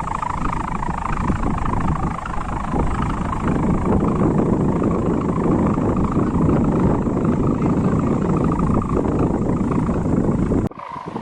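Hummer on a pegon kite droning steadily in the wind, a dense helicopter-like buzz. It cuts off suddenly near the end.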